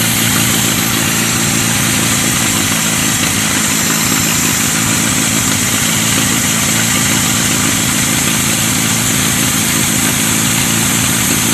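Carburetted gasoline engine running steadily at idle on choke. The owner guesses the carburetor is stopped up, with perhaps dirt in the fuel tank.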